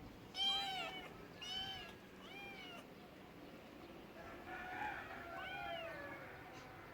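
A cat meowing: three short meows that rise and fall in pitch, about a second apart, then a longer run of meows about four and a half seconds in.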